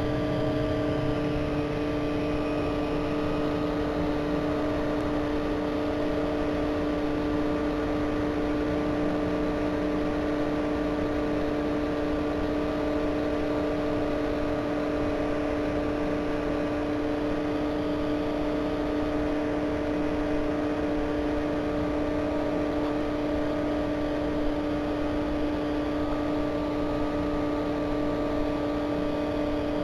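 Steady hum of a small motor, a few fixed tones held over a soft hiss, unchanging throughout.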